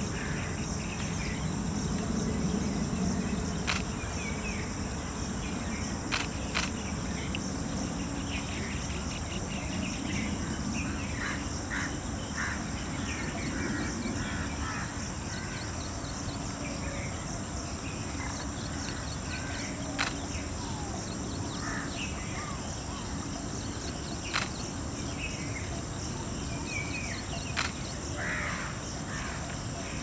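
Outdoor wildlife ambience: a steady, high-pitched drone of insects with scattered short bird calls. A handful of sharp clicks stand out through it.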